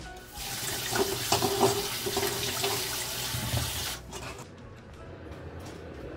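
Tap water running into a stainless steel bowl in a metal sink, a steady rush that shuts off abruptly about four seconds in.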